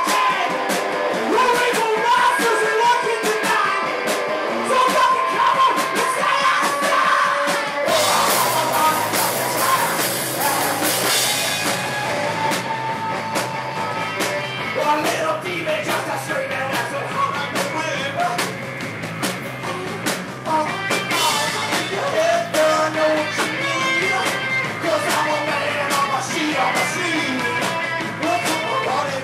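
Live rock band playing: electric guitar, electric bass and drum kit, with a male voice singing. About eight seconds in a cymbal crash rings for a few seconds and the bass comes in deeper.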